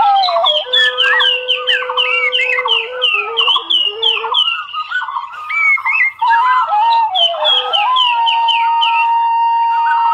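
Intro music of long held notes overlaid with bird-like chirps, short falling calls repeating about three times a second in two runs; a single held note carries on alone through the last couple of seconds.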